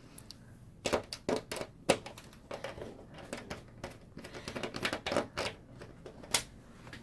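Irregular run of small sharp clicks and taps as screws are worked out of a flat-screen TV's back cover with a small precision screwdriver and set down one by one.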